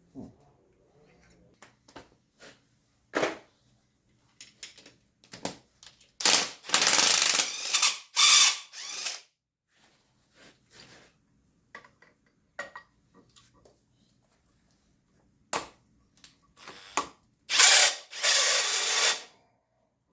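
Mechanic's tool work on a tractor's rear axle: scattered metallic clicks and knocks, with two loud mechanical runs of two to three seconds each, one about six seconds in and one near the end.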